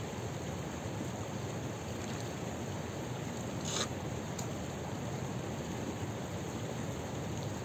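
Shallow mountain stream trickling steadily over stones, with a brief splash about four seconds in as a hand dips into the water to scoop a drink.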